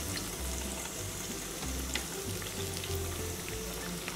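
Breaded cheeseburger deep-frying in hot oil: a steady sizzle with fine crackling.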